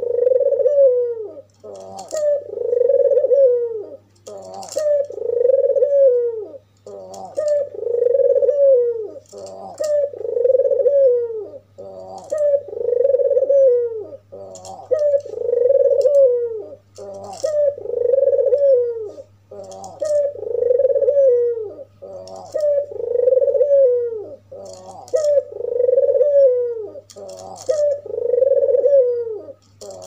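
Albino white puter dove cooing over and over in a steady rhythm, one call phrase about every two seconds: a few short notes and then a long coo that rises and falls.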